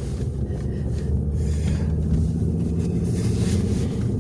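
Car running on the road, heard from inside the cabin: a steady low engine and road rumble.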